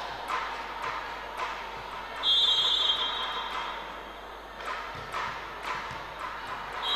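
Referee's whistle blown once, a short shrill trill about two seconds in, signalling the serve in a volleyball match. It is heard over an echoing hall with sharp taps about twice a second, and a second whistle starts at the very end.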